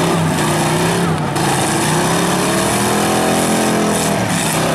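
Several demolition derby cars' engines running hard as they push against each other in the pile. About three seconds in, one engine revs up and back down.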